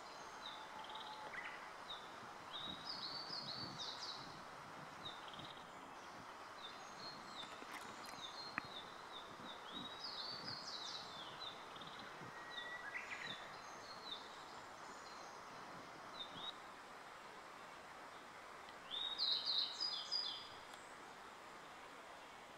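Japanese treecreeper (a race of the Eurasian treecreeper) singing short, thin, high-pitched phrases, repeated every few seconds and loudest near the end, over a steady background hiss.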